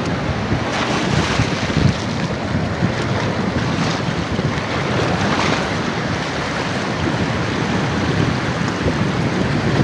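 Wind buffeting the microphone over the wash of sea waves, a steady rushing noise with a few faint brief splashes or knocks.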